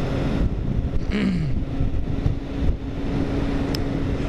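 Motorcycle engine running under way, mixed with wind rush on a helmet-mounted action-camera microphone; the engine note drops about a second in, then holds steady.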